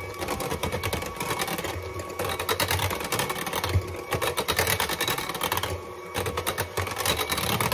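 Electric hand mixer running, its beaters rattling rapidly in a bowl as evaporated milk is mixed into sweet potato pie filling.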